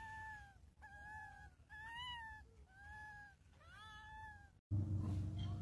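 Infant macaque crying with five plaintive, pitched coo calls about a second apart, each rising slightly and then falling away. About four and a half seconds in, the calls stop and a louder steady low hum takes over.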